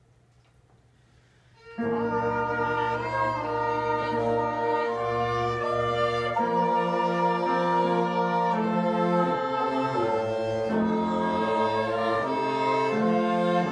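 Small mixed ensemble of bowed strings, bassoon and trombone enters together sharply about two seconds in, after a moment of quiet, then plays on in sustained, slowly changing chords.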